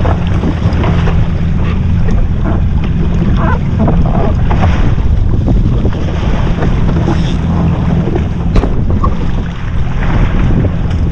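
Yamaha SHO jet ski engine running steadily under way, with wind buffeting the microphone and water rushing along the hull. A single sharp tap comes about eight and a half seconds in.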